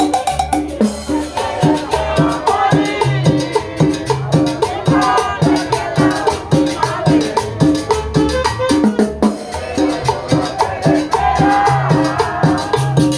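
Upbeat Latin dance music: a steady, even beat of drums and shaker-type percussion under a bass line, with a melody over it.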